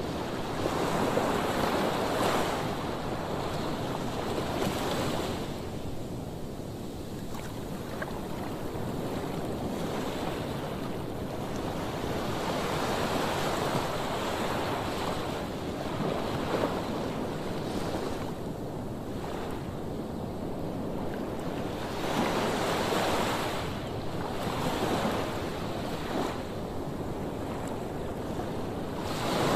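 Sea waves breaking and washing ashore, swelling and easing every few seconds, with wind on the microphone.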